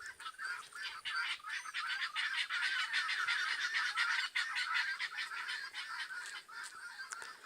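Guinea fowl calling: a dense, steady stream of rapid, repeated short calls.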